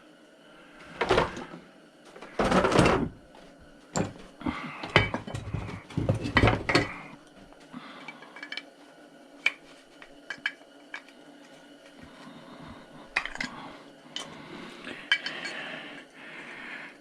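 Metal clanking and clinking as a chopsaw is taken apart with hand tools: several loud knocks in the first seven seconds, then lighter, scattered clicks and ticks.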